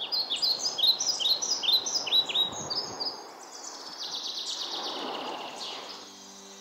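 A songbird singing: a quick run of short, falling chirps for about three seconds, then a faster, buzzy trill, over a steady rushing background noise.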